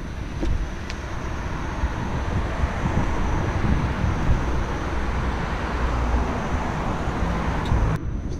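Steady wind buffeting the microphone with tyre and road rumble from a moving electric unicycle, swelling a little in the middle; the upper hiss drops out abruptly near the end.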